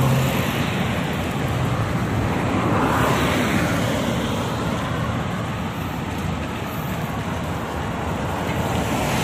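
Wind rushing over the microphone of a camera carried on a moving bicycle, mixed with road traffic noise; the rush swells briefly about three seconds in.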